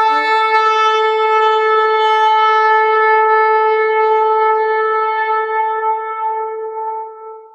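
One long horn note held at a steady pitch, the sound of a logo intro, with a lower note dropping out about half a second in and the horn fading out near the end.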